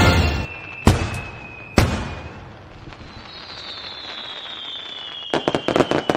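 Fireworks: two sharp bangs about a second apart, then a long whistle falling slowly in pitch, ending in a rapid run of crackling pops.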